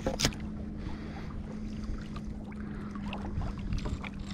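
Water lapping and splashing with small ticks against a sit-on-top fishing kayak, with wind rumbling on the microphone. A sharp knock sounds just after the start, and a faint steady hum runs underneath.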